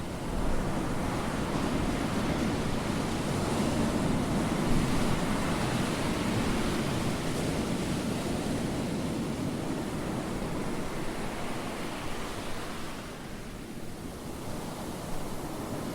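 A steady rushing noise, strongest in the low range, that swells and ebbs slightly and eases off a little about two-thirds of the way through.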